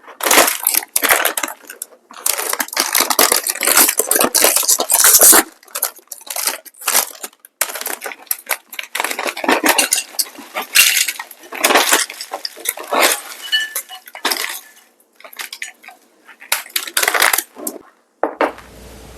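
Dishes and cutlery clattering and scraping in irregular bursts, with some crunching, giving way to a steady hiss about a second before the end.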